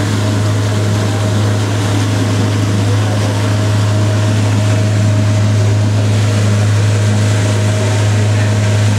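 Boat's outboard motor running steadily at speed, a constant low hum over the rush of water from its wake.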